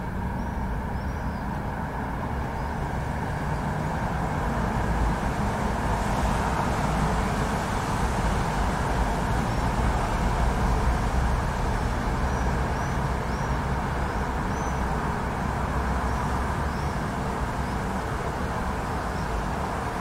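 City thunderstorm ambience: a continuous deep rumble that swells louder for several seconds in the middle, with faint high chirps scattered through it.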